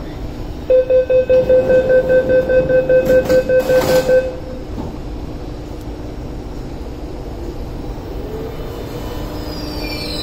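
Door-closing warning on an MTR S-train and its platform screen doors: a rapid pitched beeping, about five beeps a second, for three and a half seconds, ending with a thud as the doors shut. Near the end the S-train's electric traction motors start to whine as the train pulls away.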